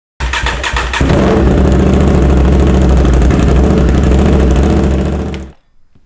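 Aprilia RS660's parallel-twin engine cranking on the starter for about a second, then catching and running. It cuts off suddenly about five and a half seconds in.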